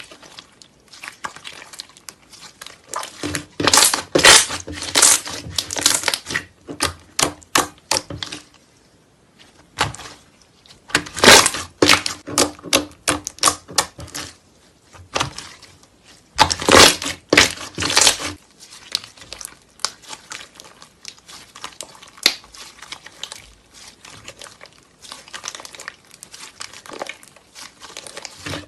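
Slime being squeezed and poked by hand, giving runs of dense crackling and popping clicks in several bursts, with quieter stretches between them.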